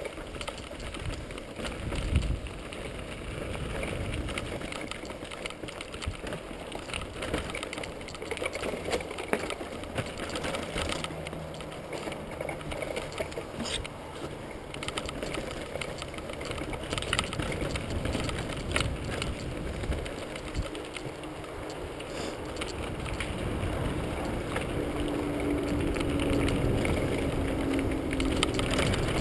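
Mountain bike ridden fast down a rocky forest trail, heard from a camera mounted on the bike or rider: tyres rumbling over rock and gravel, with the chain and frame rattling and knocking over the bumps.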